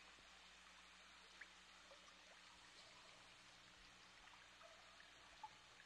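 Near silence: a faint steady hiss, with a couple of tiny ticks about a second and a half in and again near the end.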